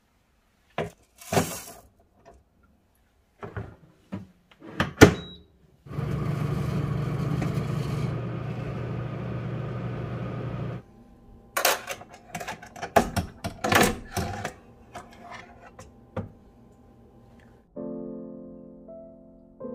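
Clicks and knocks as a stainless mesh rotisserie drum is fitted into a Lihas oven air fryer, then about five seconds of steady whirring from the oven running while the drum turns during coffee roasting. A run of sharp clicks and rattles follows, and music starts near the end.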